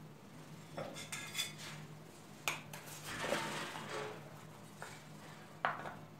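A metal spatula scraping and clinking against a metal baking tray as cut pieces of date-and-nut bar are pried up. There are several sharp clicks, the loudest near the end, with scraping in between.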